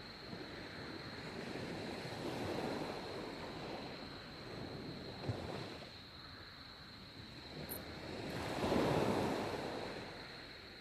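Sea waves washing in, several slow surges with the biggest near the end, over a faint steady high tone.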